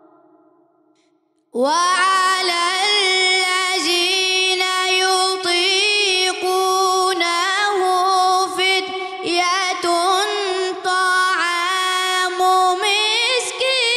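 A boy's voice reciting the Quran in the melodic tajweed style. One phrase dies away, and about a second and a half in a new long phrase begins, held on a steady note with wavering ornaments in the pitch.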